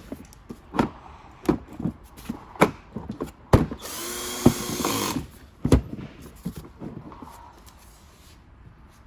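Power drill driving a screw into a plastic body panel, in one short run lasting about a second near the middle, with a series of sharp knocks and clicks before and after it.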